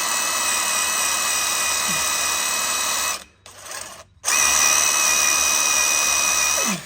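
Power drill running steadily with a high whine as it drills out a snapped bolt in a 9.25 rear end's yoke. It stops a little after three seconds, then starts again about a second later and runs until near the end.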